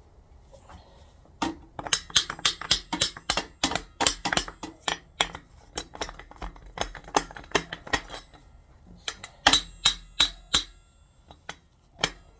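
Rapid metal-on-metal hammer blows, about three to four a second, driving at a distributor seized in a Ford 351M engine block. The strikes start about a second and a half in, pause briefly near nine seconds, pick up again, then thin out to a few single knocks near the end.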